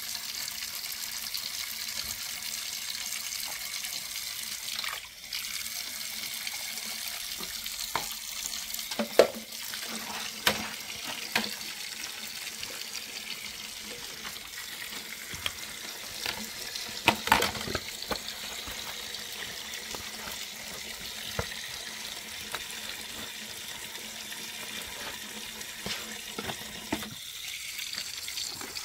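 Tap water running steadily into a basin during hand dishwashing, with scattered sharp knocks and clinks through the middle.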